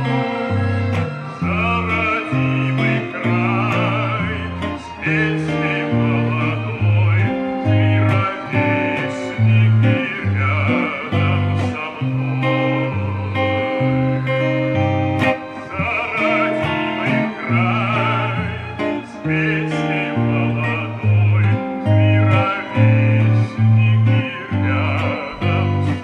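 Electric guitar, a Les Paul-style solidbody, played through an amplifier: chords over a bass line that steps from note to note, with a wavering melody that has vibrato sounding above it.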